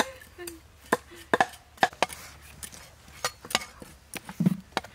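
Cleaver chopping a small fish on a thick wooden chopping block: a series of sharp, irregularly spaced chops.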